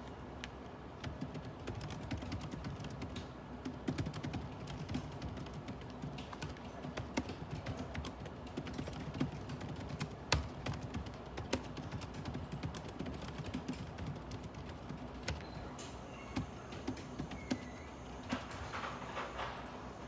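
Computer keyboard typing in irregular runs of keystrokes, over a steady low hum.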